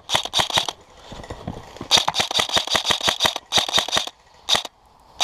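Airsoft guns firing in rapid bursts of sharp clicks: a few shots at the start, a long string of about nine shots a second near the middle, then a short burst and a single shot near the end.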